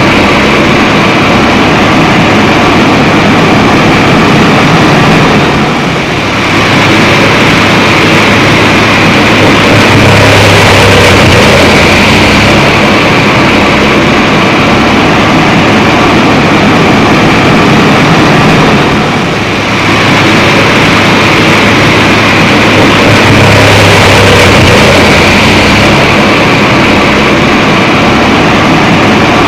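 Drum wood chipper running, a loud steady machine drone with a hum, dipping briefly twice.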